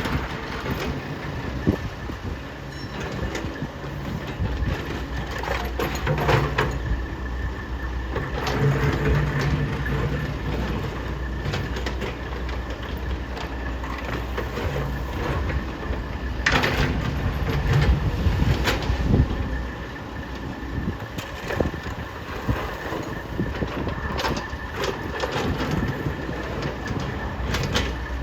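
Diesel engines of a Takeuchi TL12 skid steer and a CAT 308E2 excavator working, rising and easing in speed. Several sharp clanks from the machines are heard, about a third of the way in, twice past the middle, and a few near the end.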